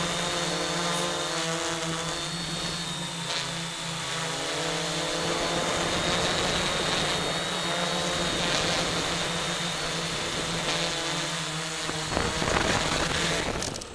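Quadcopter's electric motors and propellers whining, heard up close through the onboard camera, the pitch shifting slightly with throttle. Near the end they swell louder for a moment, then cut out.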